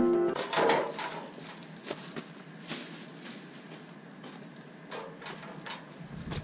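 Scattered scrapes, clicks and rustles of a dustpan and a bag of dead leaves being handled during yard cleanup on gravel, with a low rumble coming in near the end.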